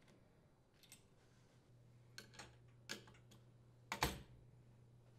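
Faint metal clicks and taps as a metal cable strain relief is handled and seated in a dishwasher's sheet-steel terminal box: a few light ticks, then one sharper click about four seconds in.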